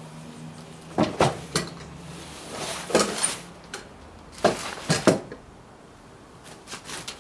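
Metal motorcycle lift stand clanking as it is pulled out from under a dirt bike and set down beside it: sharp metallic knocks and clunks in three clusters, about one, three and five seconds in.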